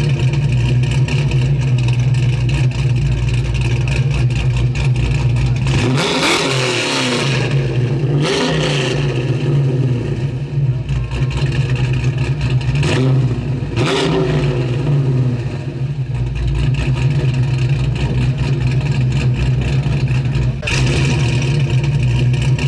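Car engine with a deep, steady rumble, its revs blipped up and falling back a few times.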